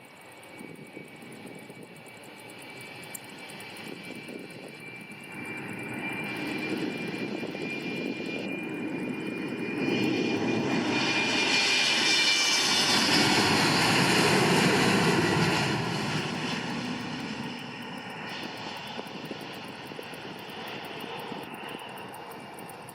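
An Embraer E190's twin GE CF34 turbofan jet engines at takeoff power as the airliner goes by. The sound builds to its loudest about halfway through, then fades away. A high whine runs through it and drops slightly in pitch as the plane passes.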